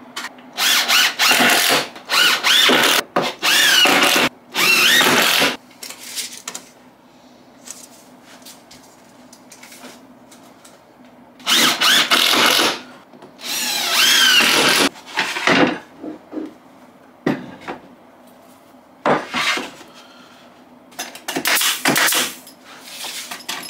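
Cordless drill driving screws into softwood in a series of bursts, its motor whining up in pitch as each screw runs in. Near the end come several short, sharp bursts from a pneumatic nail gun fixing boards down.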